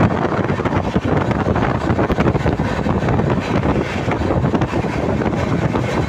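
Freight train's wagons passing close by: a loud, continuous rumble and rattle of wheels on rails, with wind buffeting the microphone.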